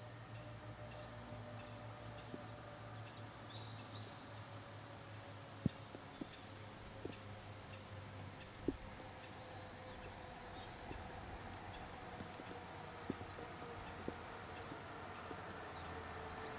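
Steady, high-pitched buzz of insects, with a few faint clicks. Near the end, the low rumble of an approaching vehicle engine grows louder.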